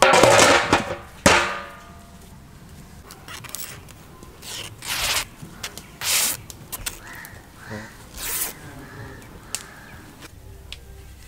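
A large aluminium steamer lid clanging against the pot with a brief ring, and a sharp knock a second later. Then a cotton cloth swishing and snapping as it is shaken out a few times.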